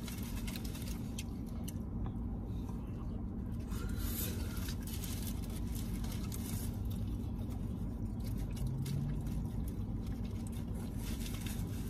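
Close-up chewing and mouth sounds of people eating a burrito and a quesadilla: many small wet clicks and smacks, with some crinkling of a paper wrapper, over a steady low hum.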